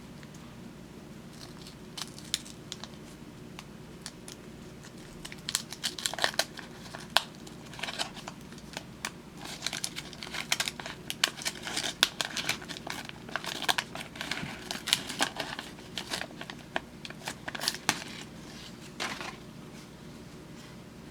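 Waxed-paper wrapper of a 1975 Topps baseball card wax pack being torn open and crinkled by hand. The crackling comes in irregular bursts, starting a few seconds in and dying away near the end.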